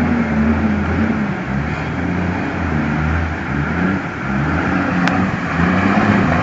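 A conventional school bus's engine running under load as the bus wades through a fast-flowing flooded river, its pitch wavering up and down, over a steady rush of water and splashing from the wheels. A single sharp click about five seconds in.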